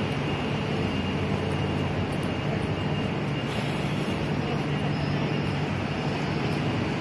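Steady low rumble of city traffic and machinery hum, unbroken throughout.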